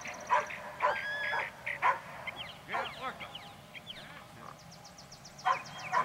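Short animal calls with bending pitch, one held steady for about half a second about a second in, with fainter chirping calls around the middle.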